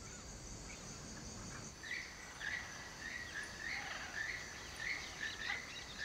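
Tropical forest ambience: a steady high drone of insects, joined about two seconds in by a short chirping call repeated about twice a second.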